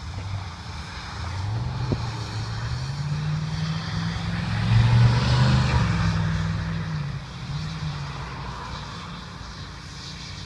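An engine running, rising in pitch and loudness to a peak about halfway through, then falling away.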